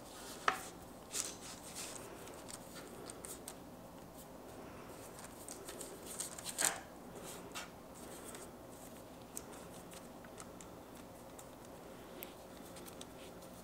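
Faint rustling of parchment paper and soft taps as fingers nudge and reshape mounds of cookie dough on a lined sheet pan, with a low steady hum underneath.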